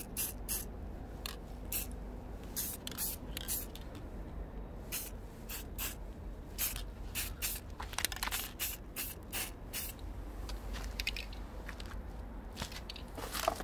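Aerosol spray-paint can hissing in many short bursts, roughly two a second in irregular runs, as paint is sprayed onto a wooden model.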